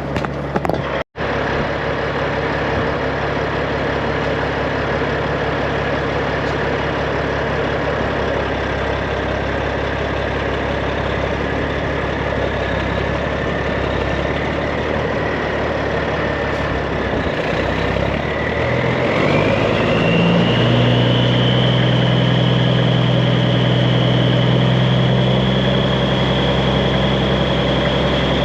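Straight-piped Peterbilt 389 semi's diesel engine running steadily at idle. Near two-thirds through, the engine speed rises and holds at a higher, louder pitch, with a whine climbing and then settling higher. There is a brief break in the sound about a second in.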